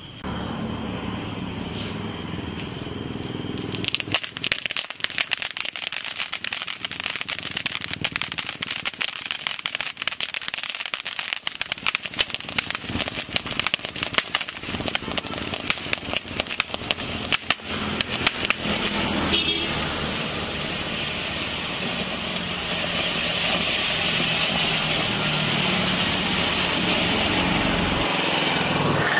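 Large ground fountain firework (an Annai rainbow colour-changing fountain) spraying sparks. It hisses as it catches, breaks into dense crackling about four seconds in, and settles to a smoother steady hiss from about twenty seconds in.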